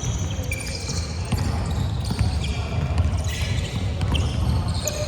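A basketball being dribbled on a court during a game, with sneakers squeaking in short high-pitched chirps.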